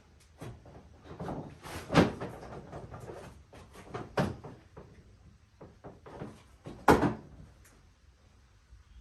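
Irregular knocks and clatter of tools and parts being handled while taking apart an ATV's body panels. Three sharper knocks stand out about two, four and seven seconds in.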